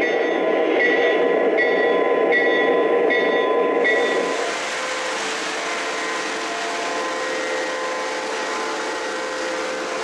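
An O-gauge model diesel switcher running with its bell ringing, one strike about every three-quarters of a second. About four seconds in, this gives way to model trains rolling along the track with a steady rushing hiss.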